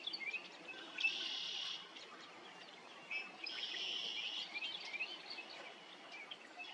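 Songbirds singing: a quick run of short rising chirps, then two buzzy trills about a second long, one about a second in and another about three and a half seconds in.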